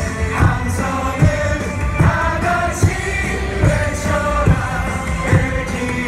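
A baseball cheer song played loud over the stadium loudspeakers, with singing over a steady thumping beat and fans singing along.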